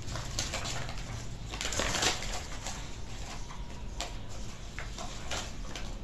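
A paper instruction sheet being unfolded and handled, crinkling and rustling in irregular bursts, loudest about two seconds in.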